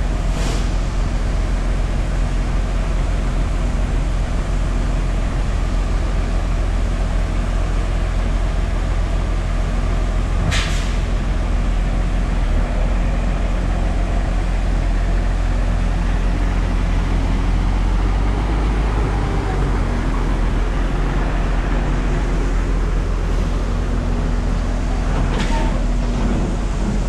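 A farm tractor's diesel engine runs steadily with a deep hum. Three short air hisses come through it: one right at the start, one about ten seconds in and one near the end.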